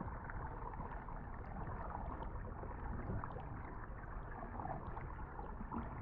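River water rushing and gurgling steadily, with faint small splashes scattered through it.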